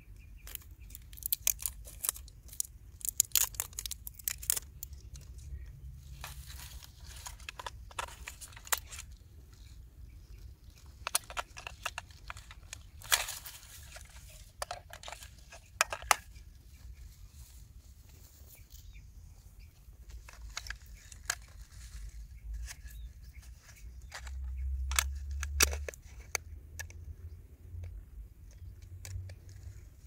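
Irregular plastic clicks, taps and crackles from AA batteries being pressed into a plastic RC transmitter's battery compartment and the cover handled, with grass rustling against the hands. A brief low rumble comes late on.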